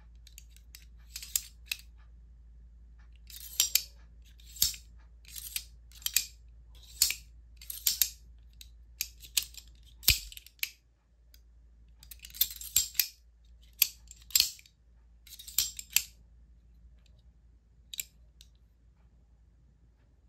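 Full-titanium Reate Exo gravity knife being worked open and closed over and over: sharp metallic clacks as the blade slides out and locks and is pushed back shut, about a dozen in all, with short pauses near the middle and towards the end.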